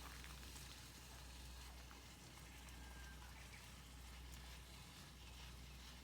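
Faint crackling of a wood campfire: a few soft pops over a low, steady hiss.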